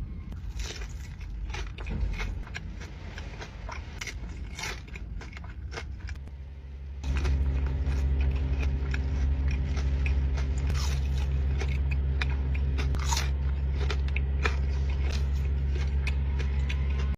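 Close-up eating sounds: bites, crunching and chewing of crisp food, with sharp crackles. About seven seconds in, a steady low hum comes in beneath the bites.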